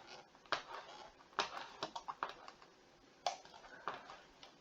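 Scattered clicks at a computer, about six irregular taps over a few seconds.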